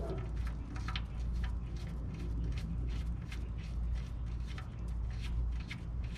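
Oil-pan drain bolt being spun in by hand, its threads and fingers making a string of small irregular clicks and scrapes, over a steady low hum.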